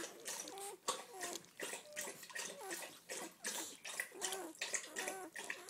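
A litter of newborn Doberman pinscher puppies squeaking and whimpering, many short high calls overlapping several times a second, mixed with wet smacking and rustling as they squirm together.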